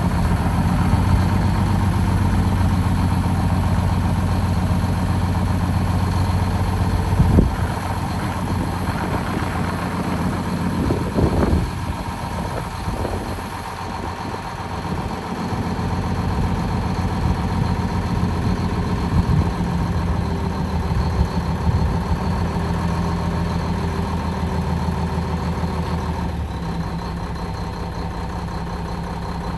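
1998 Mack CH60 truck's diesel engine running steadily while it powers the hydraulic hoist that raises its aluminum grain dump body. A single sharp knock comes about seven seconds in.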